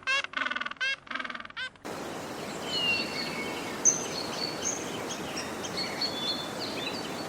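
A run of short, nasal, quack-like animal calls, about three a second, which stop about two seconds in. Then a steady outdoor background with many small birds chirping and whistling.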